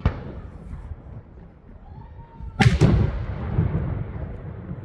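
Firework shells bursting overhead: one sharp bang at the start, then two or three louder bangs in quick succession about two and a half seconds in, each trailing off in a long rumbling echo.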